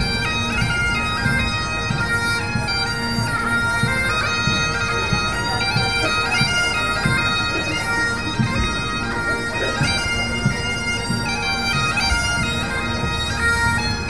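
Bagpipes playing a tune over steady drones, with low thumps underneath.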